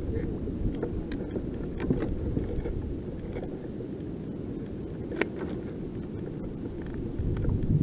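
Steady low rumble of wind buffeting the camera's microphone on a kayak at sea, with scattered small clicks and knocks as a fish and gear are handled on the kayak, one sharper click about five seconds in.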